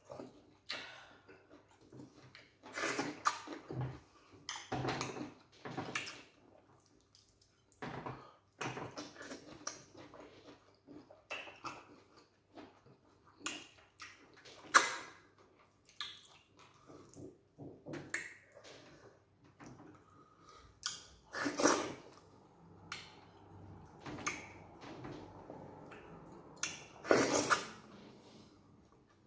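Two people eating okra and banga soup with starch by hand: irregular wet chewing, lip-smacking and slurping, with several louder moments, the loudest about fifteen seconds in.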